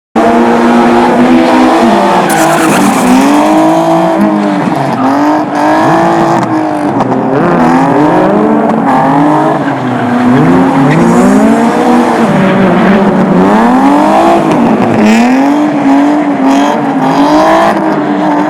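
Race car engine revving hard and backing off over and over, its pitch rising and falling every second or two, with tyres squealing at times.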